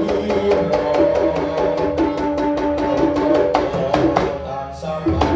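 Traditional East Javanese ensemble music: quick, evenly repeated hand-drum strokes under a sustained, wavering melody line.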